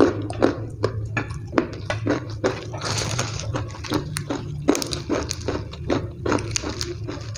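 Close-miked chewing of a mouthful of ayam geprek (smashed fried chicken) and rice: short wet chewing clicks, about two or three a second, over a steady low hum.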